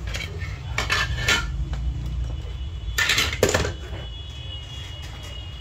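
Metal clinks and clatter as the aluminium housing of a car engine control module is handled and set down on a workbench, with a few light clicks in the first second and a louder cluster of clinks about three seconds in, over a steady low hum.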